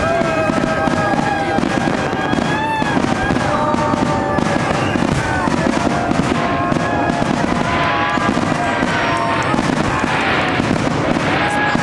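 Aerial fireworks display, shells bursting in a constant, dense crackle of reports with no single stand-out boom. Held tones that bend slightly in pitch run over the crackle.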